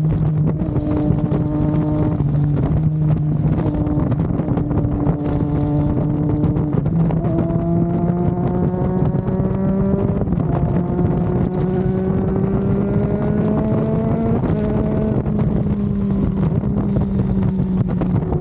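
Triumph Daytona 660's three-cylinder engine running on the road under changing throttle. Its note holds steady at first, then climbs gradually through the middle as the bike accelerates, and steps down about two thirds of the way in before easing off. Wind noise rushes on the microphone throughout.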